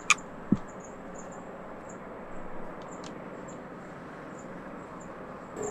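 Quiet morning ambience: a sharp click just after the start and a soft low thump about half a second in, then a steady faint hiss with small, faint high chirps scattered through it.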